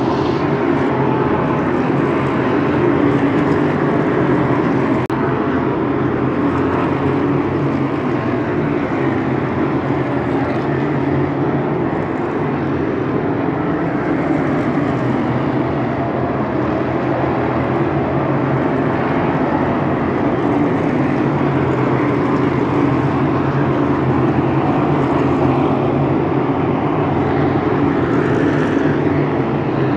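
Race car engines running, a loud steady drone with no break.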